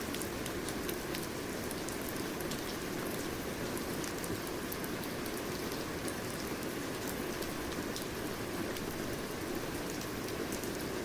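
Steady rain falling, a continuous even hiss with many small drops ticking sharply on a surface.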